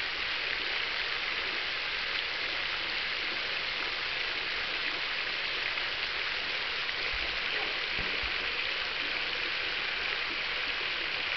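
Garden fountain running: a ring of 44 arcing jets and a 46-jet central cascade nozzle splashing steadily into the basin, an even, dense patter of falling water.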